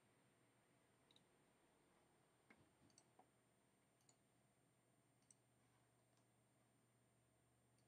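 Near silence with a handful of faint computer mouse clicks, spread unevenly over the first five seconds or so.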